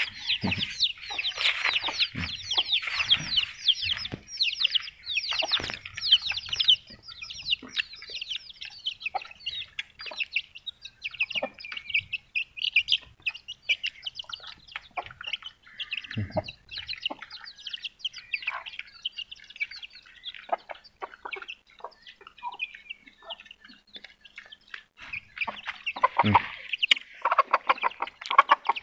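Backyard chickens clucking, with a dense chorus of rapid high chirps from small birds crowding the feed. The chirping is busiest over the first several seconds, thins out in the middle and picks up again near the end, with a few low thumps in between.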